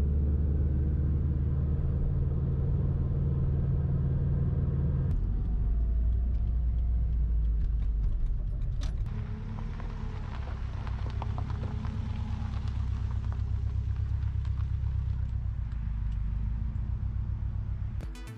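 Subaru Impreza WRX Type RA's turbocharged flat-four engine running while the car is driven, with a steady hum and road noise. The engine note drops to a lower pitch about five seconds in, and the sound gets quieter from about nine seconds, with a regular pulsing.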